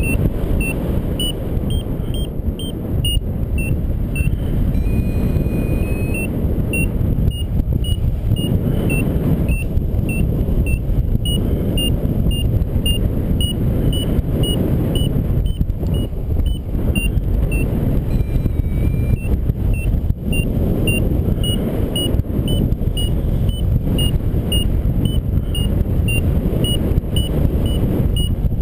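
Wind rushing over the microphone in flight under a paraglider, with a variometer beeping steadily at about two high beeps a second, a sign that the glider is in rising air. A few longer, lower tones break in now and then.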